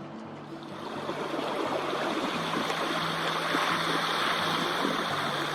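Rushing, splashing water that grows louder about a second in and then holds steady, over low sustained background music notes.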